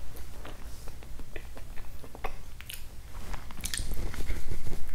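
Close-miked mouth sounds of chewing raw seasoned beef (yukhoe): irregular wet clicks and smacks, with louder clicks and rustles near the end.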